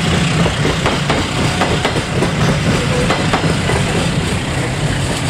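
Railway passenger coaches passing close by, their steel wheels rumbling and clattering on the rails.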